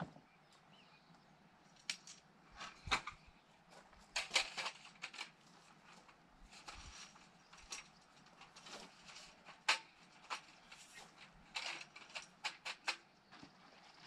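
Irregular clicks, clatters and knocks of camp cooking gear being handled and set up on a folding table, mixed with footsteps on gravel.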